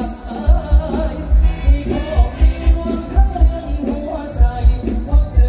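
Live mor lam band music played loud over a concert sound system, with singing over a heavy bass beat of about four thumps a second.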